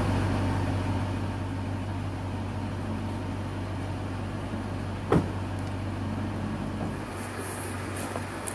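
Steady low rumble of motor-vehicle noise, with one sharp click about five seconds in.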